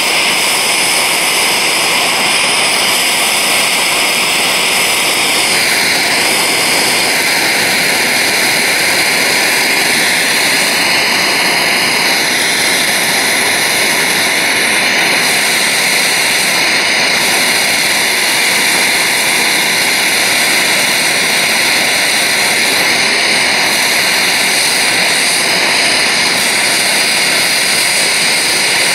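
Handheld gas blowtorch burning with a loud, steady hiss as its flame burns integrated circuit packages, whose plastic casings catch fire, to get at the gold inside. The hiss shifts slightly in tone about five seconds in and again near twelve seconds.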